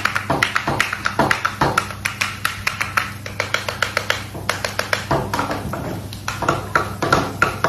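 A utensil tapping and clicking quickly against a bowl as food is mixed or whisked, several uneven taps a second.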